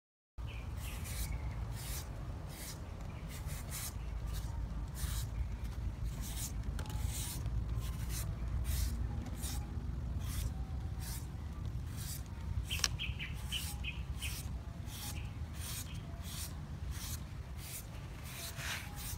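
Green papaya being shredded with a hand shredder: rhythmic scraping strokes, about two a second.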